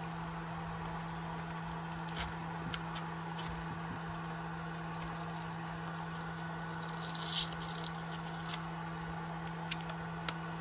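Light handling noises from working on an RC crawler's chassis: a few small clicks and a short rasping rustle about seven seconds in, over a steady low electrical hum.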